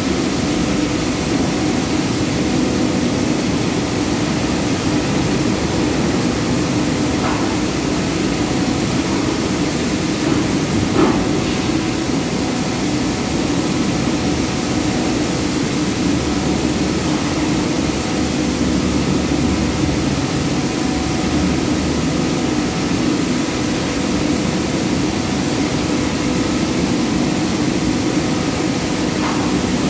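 Palm oil mill machinery running with a steady loud drone, including the rotary drum thresher turning as it strips fruitlets from the bunches. A few brief knocks come through about seven and eleven seconds in.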